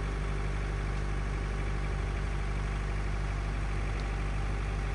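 Vehicle engine idling, running steadily at low revs with no change in speed.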